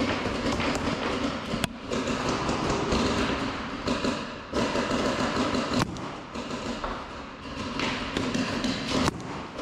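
Thuds and rustling from movement close to the microphone, with three sharp cracks of paintball markers firing, a few seconds apart.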